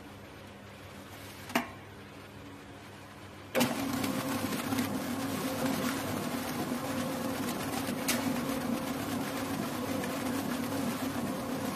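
A single click, then a commercial planetary mixer with a wire whisk starts up about three and a half seconds in and runs steadily, its motor and gearing giving a constant hum.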